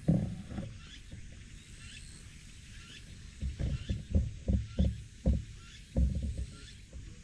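Wind buffeting the microphone in irregular low rumbles and thumps, one near the start and a cluster through the second half.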